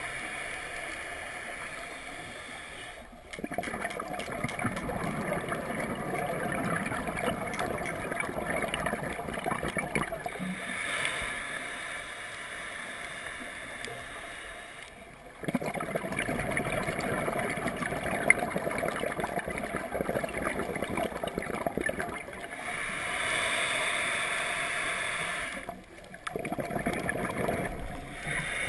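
Scuba regulator breathing heard underwater: slow breathing cycles of long stretches of gurgling exhaled bubbles, broken by shorter hissing breaths in, repeating about every twelve seconds.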